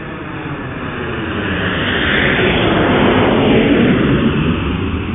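An aircraft flying past. It grows louder, peaks a little after the middle, then fades as its pitch drops.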